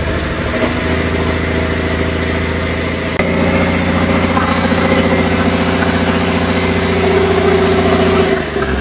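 Rebuilt Hino J08E inline-six diesel engine running at a steady speed on a test run. It gets louder about three seconds in, and its speed drops at the very end.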